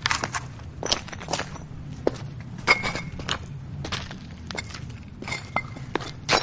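Footsteps crunching over brick and metal rubble in irregular steps, with occasional short metallic clinks ringing out. A steady low rumble from a jet aircraft runs underneath.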